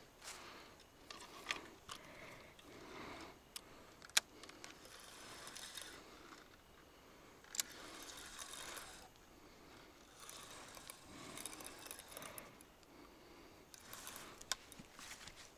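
Fishing reel being wound in as a fish is played on a bottom line, heard faintly as soft mechanical rattling and clicking. A few sharp clicks stand out, about 1.5, 4, 7.5 and 14.5 seconds in.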